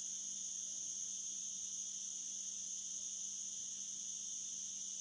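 Steady high-pitched background drone with a faint low hum underneath, unchanging throughout; no handling noise stands out.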